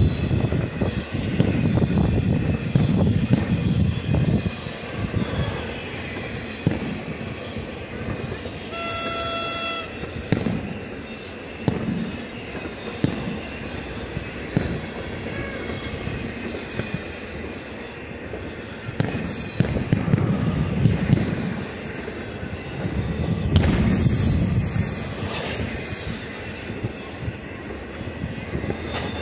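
A BNSF freight train passing at speed, with a steady rumble of wheels on rail that swells and eases. About nine seconds in there is a brief high-pitched tone.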